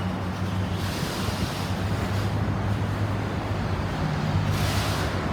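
Road traffic in the rain: a steady low engine rumble with tyres hissing on the wet road, the hiss swelling about a second in and again near the end as vehicles pass.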